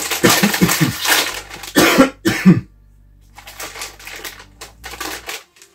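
A man coughing repeatedly into his fist, then a plastic crisp packet crinkling as it is handled and pulled open.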